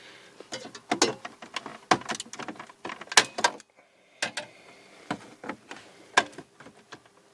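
Irregular clicks, knocks and rattles of hard plastic dash trim and hand tools being worked around a car's radio cradle while its screws are undone.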